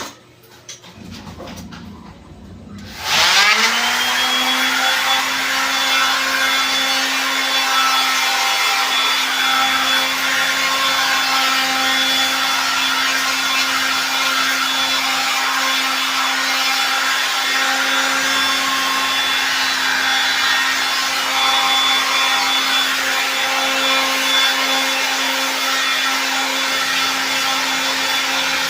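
Electric power tool switched on about three seconds in, its motor spinning up with a rising whine and then running steadily at a high, even pitch with a rough, noisy edge over it.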